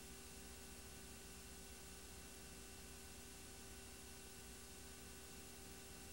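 Near silence: a faint steady hiss with a thin hum, the noise floor of a silent film transfer, with no sound from the film itself.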